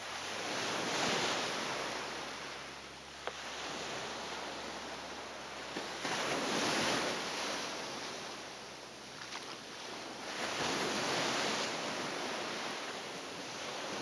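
Sea waves breaking and washing up a sandy beach, the surf swelling and easing three times, about five seconds apart.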